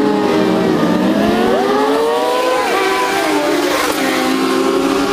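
A pack of 600–1000cc racing superbikes passing at high revs, several engines sounding at once. Their pitches rise and fall as the bikes go by and change gear.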